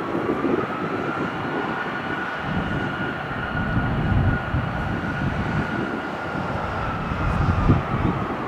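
Distant jet engines of a rear-engined airliner on the runway, a steady high whine. Wind gusts buffet the microphone underneath it.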